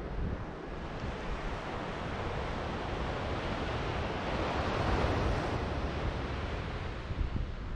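Ocean surf breaking and washing up the beach, swelling to its loudest about five seconds in and then easing off, with wind rumbling on the microphone.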